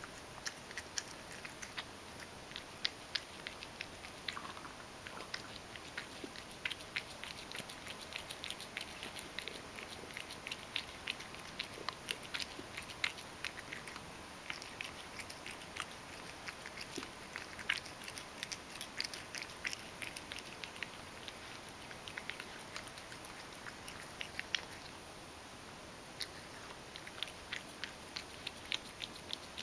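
Ragdoll cat eating crushed kibble softened with hot water from a stainless steel bowl: faint, quick and irregular chewing clicks, with a short pause a few seconds before the end.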